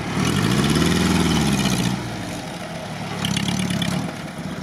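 ZAZ-968M Zaporozhets's rear-mounted air-cooled V4 engine revving as the car crawls over frozen, rutted mud, heard from outside. The engine note rises and falls once in the first two seconds, then picks up again about three seconds in.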